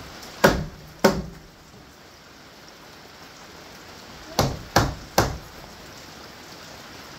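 Hammer blows on the wooden framing: two strikes about half a second apart near the start, then three more in quick succession about four seconds later.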